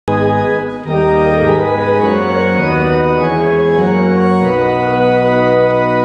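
Church organ playing sustained chords, changing chord about a second in and again around four and a half seconds in.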